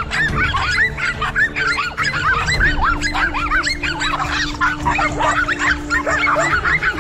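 Dense chorus of short honking animal calls, many overlapping at once, with a steady low drone starting about three seconds in and stopping near the end.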